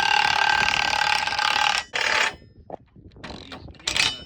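Milwaukee impact wrench hammering a bolt down on an excavator track plate, a continuous rattling run that cuts off about two seconds in. A short second burst follows, then a few light metal knocks and clinks.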